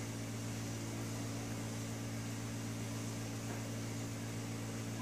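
Steady low electrical or mechanical hum with a faint even hiss: room tone.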